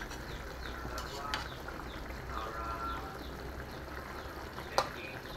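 Fish simmering in coconut milk in a wok, the liquid bubbling steadily. A single sharp clink of the metal spatula against the pan near the end.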